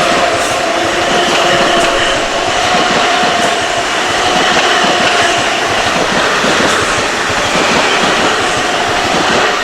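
Long Island Rail Road diesel passenger train passing close by, its wheels clattering over the rails in a rapid steady clicking, with faint steady high tones over the rumble.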